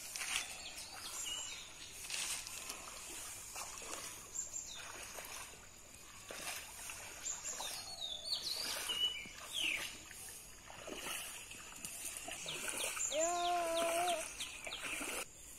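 Shallow pond water splashing and sloshing as a seine net is dragged through it by men wading, with small birds chirping. Near the end a chicken gives a drawn-out call.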